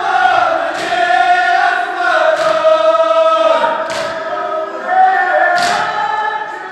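A crowd of men chanting a Kashmiri nauha, a Shia mourning lament, in unison. Four sharp, loud beats fall about every second and a half, typical of matam, chest-beating in time with the lament.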